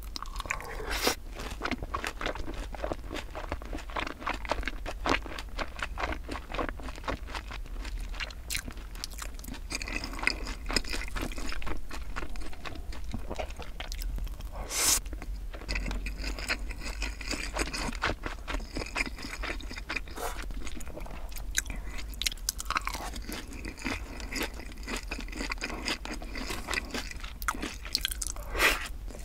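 Close-miked chewing and crunching of sweet-spicy sauced boneless fried chicken, with mouthfuls of white rice, a dense run of irregular crunches and clicks.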